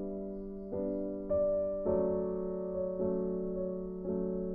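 Background music: soft chords struck one after another, each ringing and fading before the next, a new one every half second to a second.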